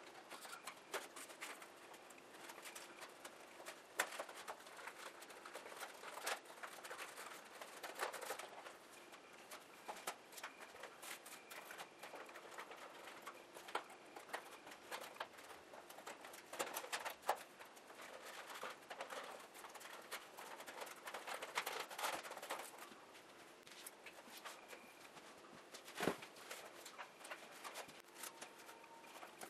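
Handling noise from foam RC model airplane parts being fitted together: rustling and rubbing, with scattered light clicks and taps of plastic and foam. The sharpest knock comes near the end.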